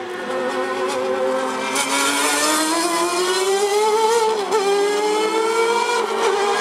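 Ferrari F40's twin-turbo V8 accelerating hard along a race-circuit straight. Its engine note climbs steadily and wobbles briefly about four and a half seconds in.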